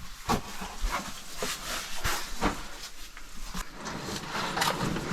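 Scraping and rustling of people crawling over rough cave rock: clothing and gear dragging on stone, with irregular sharp knocks and scrapes.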